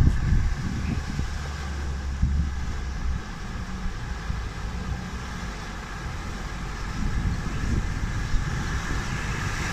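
Off-road 4x4 engine running at low revs, a steady low rumble with a few brief knocks.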